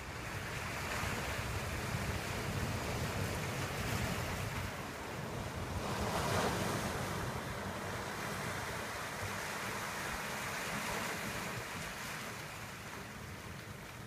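Surf washing over a rocky shore, with wind buffeting the microphone. The wash swells to its loudest about six seconds in, then slowly fades.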